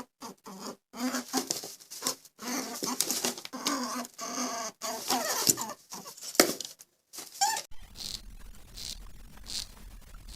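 A small animal squeaking in a rapid run of short pitched calls. From about eight seconds in, soft high scratching or rustling strokes repeat about once or twice a second.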